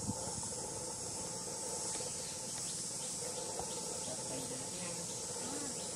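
A steady, high-pitched insect chorus that runs without a break.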